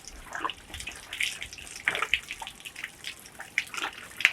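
Water splashing and sloshing in irregular bursts as a wet goat skin is turned over and worked in it.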